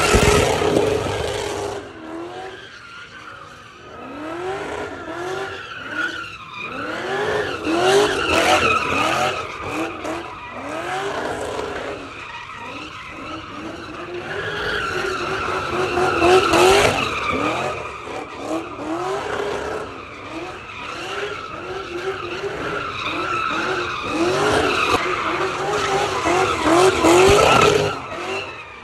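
A car doing donuts, its tyres squealing steadily while the engine revs up and falls back again and again, about once a second. The squeal swells loudest several times, near the start and again around a quarter, half and most of the way through.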